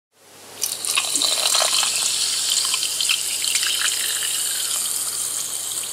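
Running, splashing water, a steady rush with small crackles throughout, fading in over the first half second.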